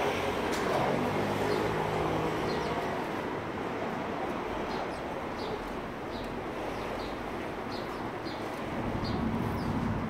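Sparrows chirping, short high chirps about once or twice a second, over steady street noise. An engine hums low for the first few seconds.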